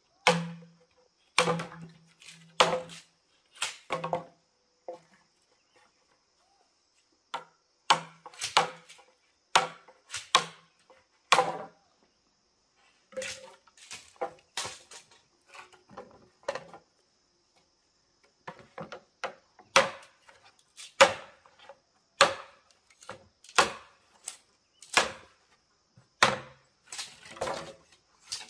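Sharp, irregular chopping strokes of a blade, roughly one a second, pausing twice.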